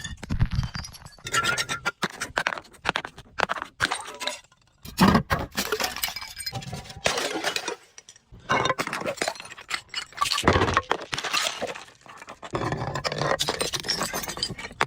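Glass bottles breaking and being crushed: dense crunching and clinking of cracking glass and shards, in bursts broken by two short pauses, about four and eight seconds in.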